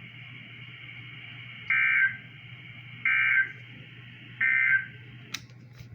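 Emergency Alert System end-of-message signal: three short, identical bursts of digital data tones, about a second and a half apart, marking the close of the alert. A steady low hum runs underneath, and a sharp click comes near the end.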